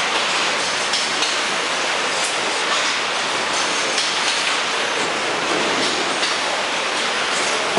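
Steady, loud din of a car assembly line: even machinery and air hiss from the moving line, with faint clicks and clanks now and then.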